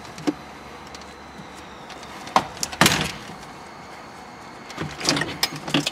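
Plastic retaining clips of a Honda Civic's centre dash bezel popping loose as the panel is pried out with a plastic trim puller. A few sharp clicks and snaps, the loudest about three seconds in, then a quick run of clicks near the end.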